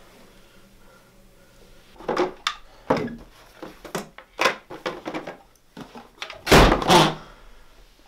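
A Ouija board and its cardboard game box being handled and knocked about, a string of knocks and clatters starting about two seconds in. It ends in two heavy thuds half a second apart near the end, the loudest sounds.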